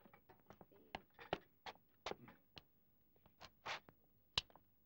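Quiet, irregular clicks, taps and rustles of people moving and handling things, with a short rustle about three and a half seconds in and a sharp click shortly before the end.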